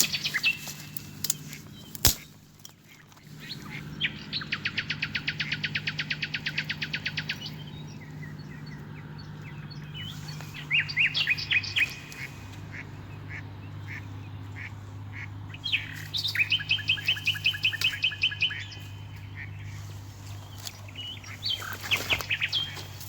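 Ducks calling in rapid runs of quacks, about nine a second, several times over. About two seconds in comes a single sharp bang, the loudest sound, and a steady low hum runs underneath.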